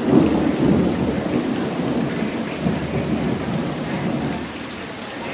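Thunder rumbling and slowly fading over steady rain.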